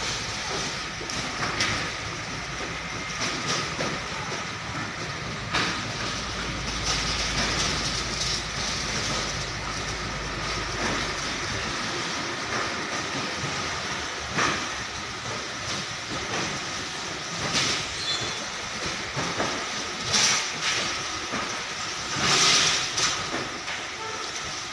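Hino 500 container truck moving slowly with its trailer: a steady rumble with the empty container chassis rattling and several sharp metal clanks. The deep low rumble drops away about halfway through.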